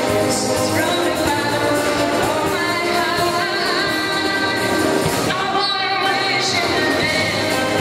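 Live wind orchestra with tubas, French horns and trumpets accompanying a female lead singer on a microphone, with a choir.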